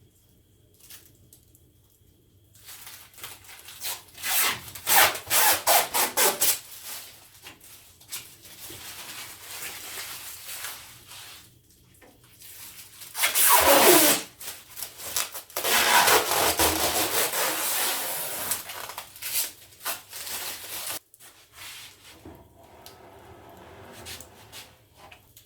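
Wood being worked by hand with a rubbing, rasping action: a run of quick strokes at about four a second, then longer scraping stretches that stop suddenly, with fainter rubbing near the end.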